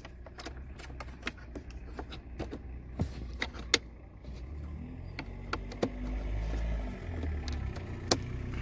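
Scattered sharp plastic clicks and taps as a car wiring connector is handled and pushed into its socket. A low rumble comes in about halfway through.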